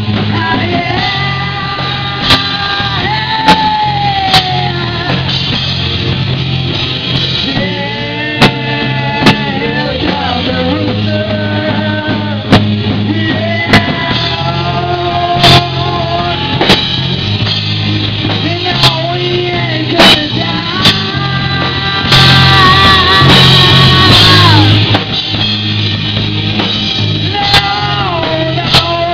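Live rock band playing: electric guitars, bass and drum kit under a lead singer holding long notes. Sharp drum hits fall at fairly even intervals, and about 22 seconds in the band swells into a louder, brighter stretch lasting some three seconds.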